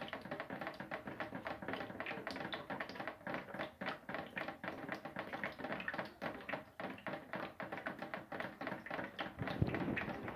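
Water drips falling into a group of buckets: a quick, irregular patter of taps and plinks, several a second, some of them ringing with a pitch. A dull thump shortly before the end.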